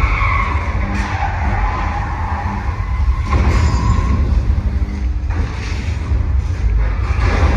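Simulated earthquake effects: a heavy, continuous low rumble with surges of rushing, crashing noise about every two seconds.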